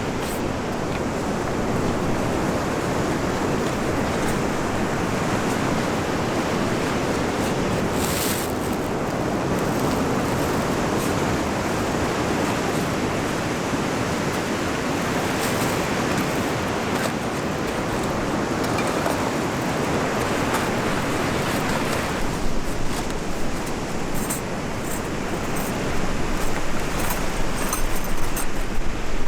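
Sea surf washing on the shore, a steady rushing noise, with wind. From about two-thirds of the way in, wind buffets the microphone, and a few sharp clicks come through near the end.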